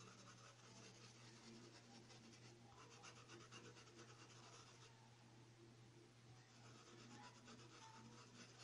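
Faint scratching of a paintbrush scrubbing fabric paint into a cotton towel in quick small strokes, over a low steady hum.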